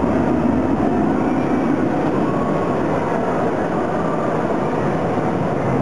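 Wooden roller coaster train rumbling steadily along its wooden track.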